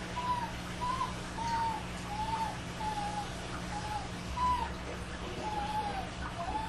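A dog whining in a string of short, rising-and-falling cries, about one every two-thirds of a second, over a low steady hum.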